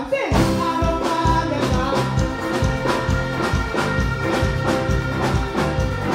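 Live band playing music with a steady beat over the stage sound system.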